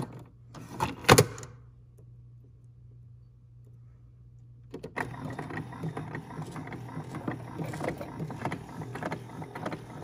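Keurig 2.0 single-serve coffee maker: sharp clicks and a knock as the pod is seated and the brewer is closed, the loudest about a second in. From about five seconds in the machine brews, its pump running as hot water pours into the mug with a steady, crackly noise.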